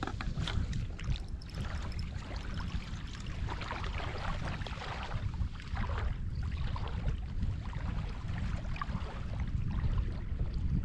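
Wind buffeting the microphone over small sea waves lapping and trickling at the shore.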